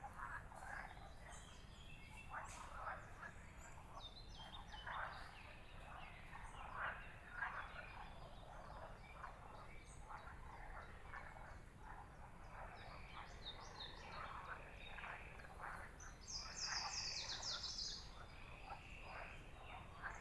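A chorus of frogs croaking, with songbirds singing higher above them and a bright burst of bird song near the end.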